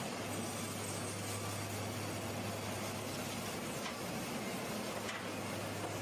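Sawmill machinery running steadily: an even mechanical drone with a constant low electric hum, and a faint click or two near the end.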